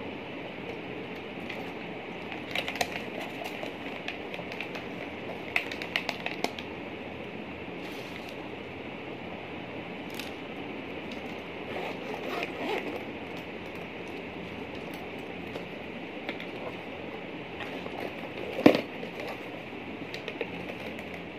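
Handling noises from a zippered fabric pouch and its plastic packaging: scattered rustles and small clicks over a steady hiss, with one sharp knock near the end.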